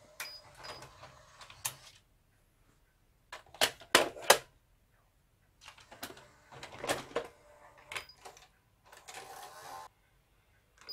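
Motorised cassette drawer of a Hitachi VT-S1000 S-VHS VCR running open, then a few sharp clacks as a VHS cassette is set into it. In the last few seconds the mechanism runs again as the drawer takes the tape in.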